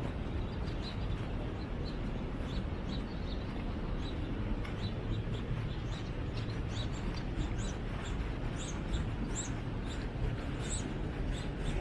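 Small birds chirping in short, high, repeated notes over a steady low background rush. The chirps come more often and louder in the last few seconds.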